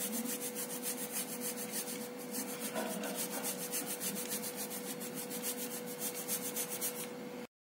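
A block of chocolate being grated on a metal hand grater: fast, rhythmic rasping strokes with a short pause about two seconds in. The sound cuts off suddenly near the end.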